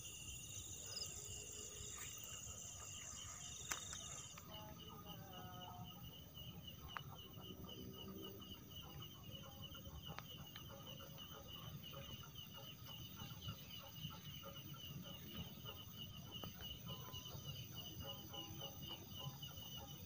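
Night-time field ambience: insects trilling steadily with a fast, high pulsing buzz, and a second, higher insect drone that stops about four seconds in. Underneath, a faint rustling of footsteps pushing through grass and undergrowth.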